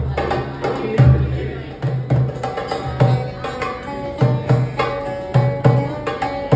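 Live Middle Eastern fusion music: a large frame drum's deep strokes and a small hand drum keep a steady rhythm. Partway through, a plucked, amplified string instrument comes in over the low drum beat.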